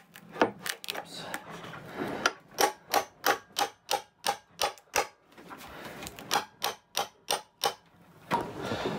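Quick, sharp metallic taps, about three a second, as a flat blade is worked under the rim of an old stainless steel sink to pry it up from the sealant bedding it to the benchtop. The tapping pauses about five seconds in, comes back for a few more strokes, and stops near the end.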